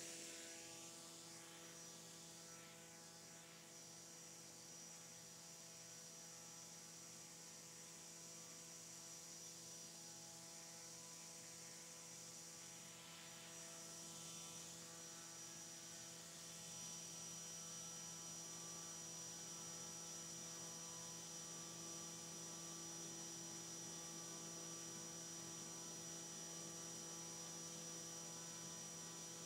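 Drone-scale propeller and its electric motor on a thrust test stand running steadily at about 5000 RPM: a faint, even hum.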